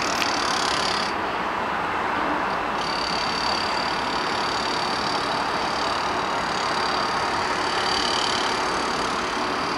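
Steady city traffic din, an even wash of noise without distinct events, with a thin high whine on top that drops out for a couple of seconds about a second in.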